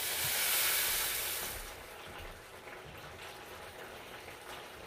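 Water poured into a very hot pan of browned rice, hissing and sizzling loudly at first, then dying down after about a second and a half into a quieter steady sizzle with small crackles.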